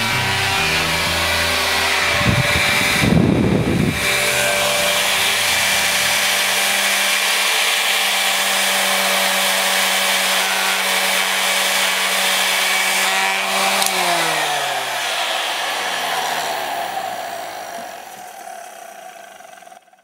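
Vintage PIFCO 550-watt AC/DC hairdryer running: its brushed motor hums steadily under the rush of blown air, with a loud gust of air on the microphone about three seconds in. About fourteen seconds in it is switched off, and the motor's hum falls in pitch as it spins down while the airflow fades away.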